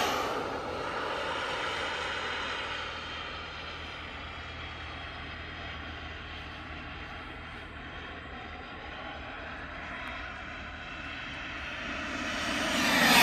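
CARF Rookie radio-controlled model jet flying past. Its engine sound drops in pitch and fades right at the start, stays steady and distant through the middle, then grows louder near the end as the plane comes in for another pass.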